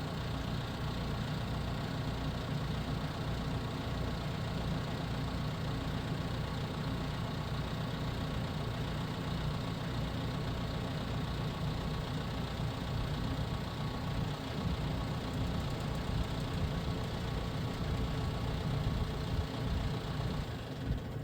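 A heavy machine's engine idling steadily, a low rumble.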